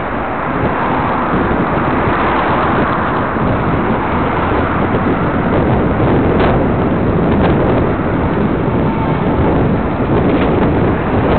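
Steady wind rushing over the microphone of a camera on a moving bike, with road and traffic noise underneath.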